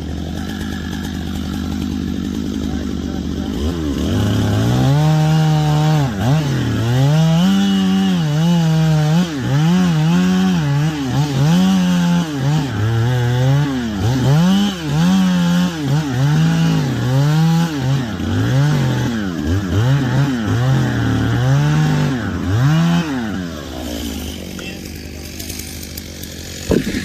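Two-stroke chainsaw running at idle, then revved and cutting wood, its engine note rising and dipping about once a second under load. It drops back to idle near the end.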